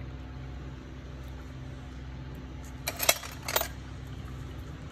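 Steel pedicure instruments clinking against each other in their metal case: a quick cluster of sharp metallic clinks about three seconds in, over a steady low hum.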